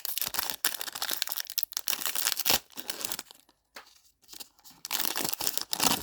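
Wrapper of a trading card pack being torn open and crinkled by hand: dense crackling for about three seconds, a short pause, then more crinkling near the end.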